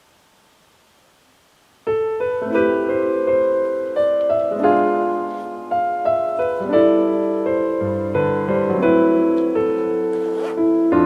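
Background piano music, a gentle melody over held chords, starting suddenly about two seconds in after near silence.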